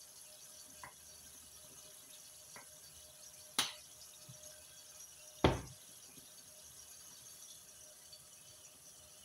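Beef patties frying under a glass lid in a pan, a faint steady sizzle. A sharp click about three and a half seconds in and a heavier thump about two seconds later.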